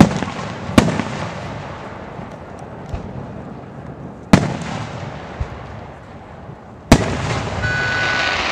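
Aerial fireworks shells bursting overhead: four loud bangs, two close together at the start, one about four seconds in and one about seven seconds in, each trailing off in an echo, with a steadier rushing noise after the last.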